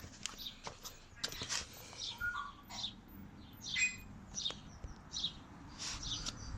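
Birds chirping in short calls, with scattered clicks and knocks of hand tools as bolts on the motorcycle's front fork are loosened.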